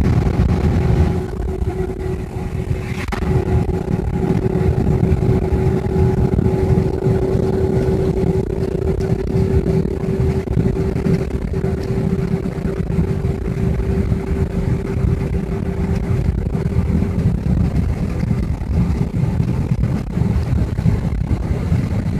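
A car driving, heard from inside the cabin: steady engine and road rumble with a constant hum that fades after about sixteen seconds. A single brief click about three seconds in.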